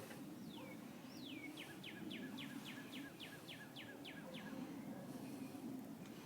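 A songbird singing: two slower downslurred whistles, then a run of about ten quick downslurred notes, roughly three a second, over a steady low background hum.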